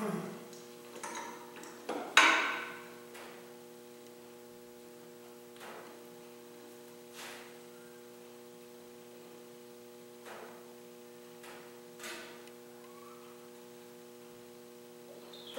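Scattered knocks and clicks of a plywood jig being set and clamped onto a drill press table, the loudest a ringing metallic knock about two seconds in, over a steady electrical hum.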